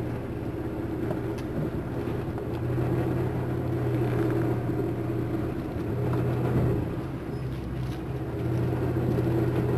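Van engine running at low revs, heard from inside the cab: a steady low hum that swells gently a few times.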